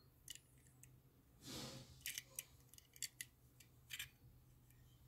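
Faint clicks and light taps of a small die-cast toy car being handled and turned over in the fingers, with a short soft rustle about a second and a half in, over a low steady hum.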